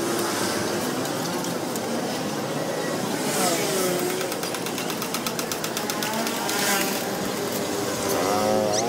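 Street sound with an engine running close by, its rapid even beat clearest about halfway through.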